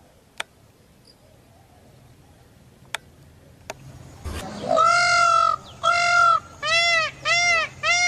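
Indian peafowl calling: loud, nasal honking calls that rise and fall in pitch, two longer calls and then a quick run of shorter ones, starting about halfway through after a few sharp clicks.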